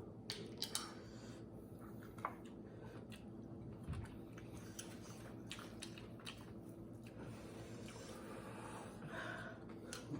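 Quiet chewing of food during a meal, with scattered small clicks and crunches over a faint steady hum.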